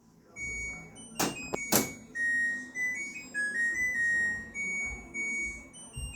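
Washing machine's electronic beeper playing a short melody of single stepping notes, the end-of-cycle tune, with two sharp clicks about a second in.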